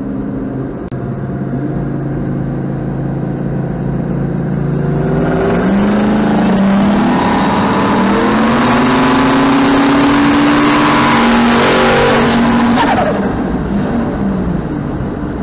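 V8 car engine heard from inside the cabin, cruising steadily, then going to full throttle about five seconds in for a roll-race pull from highway speed, its pitch climbing with a rush of wind and road noise. Near the end it lifts off and the pitch falls.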